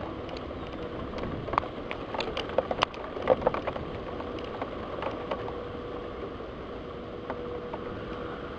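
Steady rain with a cluster of irregular sharp taps in the middle, like drops hitting a window pane. A faint steady hum comes in during the second half.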